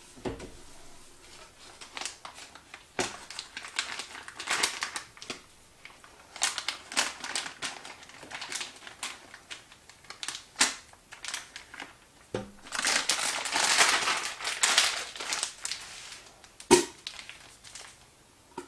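Plastic pastry bag and gloves crinkling as the bag is filled with chocolate buttercream from a spatula, with a few sharper knocks of the spatula on the metal bowl. The crinkling is densest about two-thirds of the way through.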